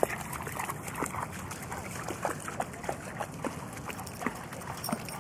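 Dogs splashing in water, a run of short irregular splashes and sloshes, several a second.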